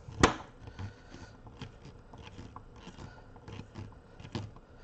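Hand-handling noise from parts being fitted into a car amplifier's chassis: one sharp click just after the start, then light scrapes and small taps, and another click near the end.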